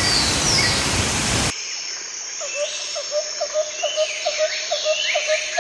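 Waterfall roaring with birds chirping over it. About a second and a half in it cuts suddenly to quieter bird calls: a steady run of short low notes about three a second, with higher chirps above.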